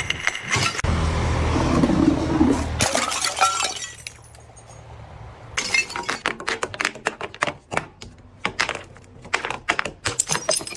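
Glass bottles breaking: a crash about three seconds in, then, after a short lull, a rapid run of sharp cracks and clinks of shattering glass in the second half.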